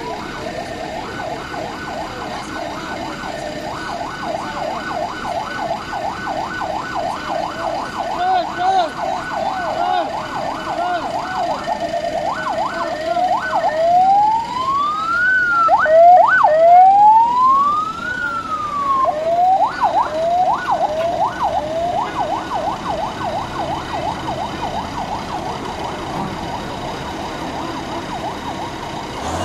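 Electronic siren of a police patrol car, sounding a fast repeated yelp. About halfway through it switches briefly to a few slow rising wails, loudest as the car passes, then goes back to the yelp and fades slightly.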